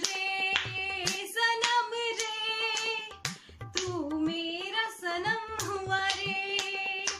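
A woman singing wordless held notes, her voice sliding between pitches, with short breaks between phrases. Soft low thumps repeat underneath.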